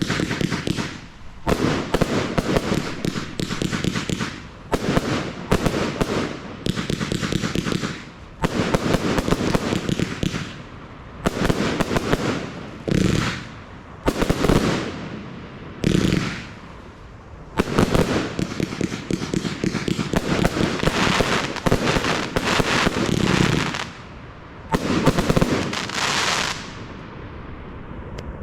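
Audacious compound firework (a consumer firework cake) firing: about a dozen volleys of rapid bangs and crackles, each a second or two long, with short pauses between them.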